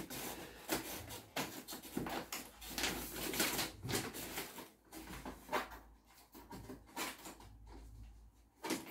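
Cardboard packaging being cut open with scissors and handled: scattered rustles, scrapes and light knocks, thinning out in the last few seconds.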